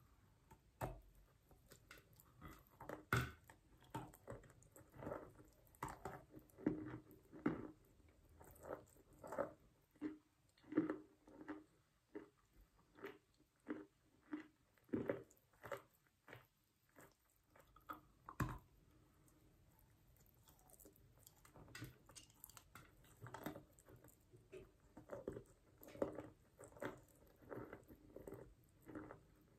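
A person biting and chewing lumps of wet chalk: steady, crunchy chewing, with sharper cracks as bites are taken about three seconds in and again a little past halfway.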